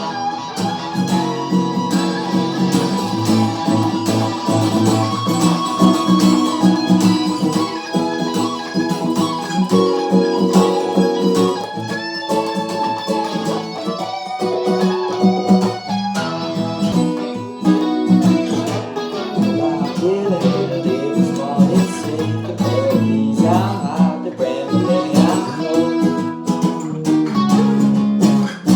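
Guitar jam: continuous plucked and strummed notes and chords.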